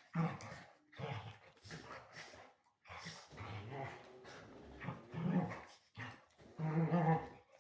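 Excited dogs growling in play while tussling over a chew toy: a string of short growls, one after another.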